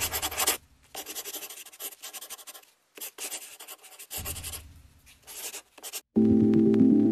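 Short scratchy rubbing sounds in several edited bursts, broken by abrupt cuts to dead silence. Electronic music starts about six seconds in.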